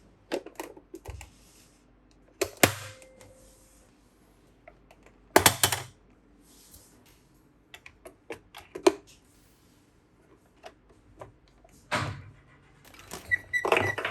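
Small plastic toy pieces and packaging handled up close: irregular sharp clicks and taps with a few louder, short scraping bursts.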